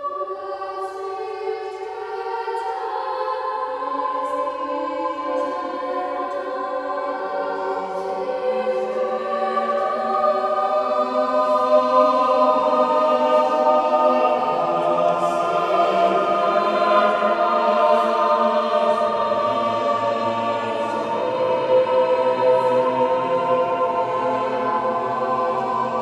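Mixed choir of children and adults singing in parts. Higher voices hold notes at first, then lower voices join in one after another, so the chord fills out and grows a little louder over the first dozen seconds.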